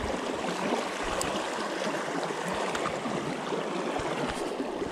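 Shallow river water flowing and rippling steadily close by, around a wading angler.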